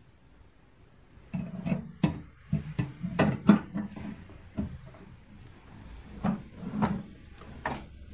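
Stainless-steel mesh rotating basket of an air fryer oven being fitted onto its mounts inside the oven cavity: a run of irregular metallic clicks and knocks. The oven's glass door is shut near the end.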